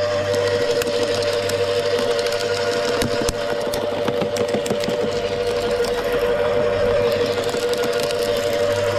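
Wood chipper running steadily with a constant mechanical hum, with scattered sharp clicks and knocks of branches being chipped, one louder knock about three seconds in.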